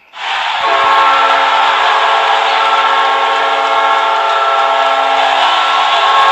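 Hockey arena goal horn sounding a sustained multi-note chord, coming in within the first half second and held steadily over a dense, steady noisy roar.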